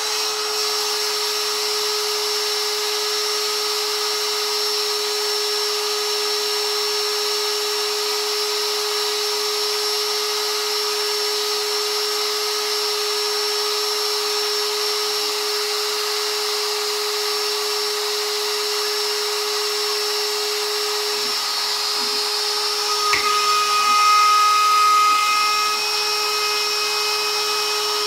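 DeWalt compact router on a Shapeoko 3 CNC, running steadily at full speed with a high, even whine. About 23 seconds in, higher whining tones from the stepper motors join as the gantry moves the bit, and the sound grows louder for a couple of seconds.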